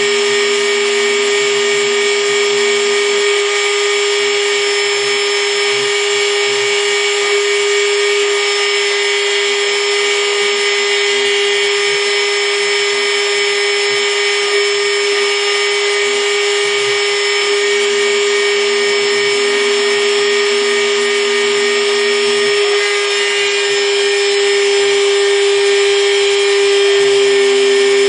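Router spindle on a small CNC mill running at a steady high speed while a 0.8 mm bit engraves a copper-clad PCB: an even, high motor whine that grows slightly louder near the end.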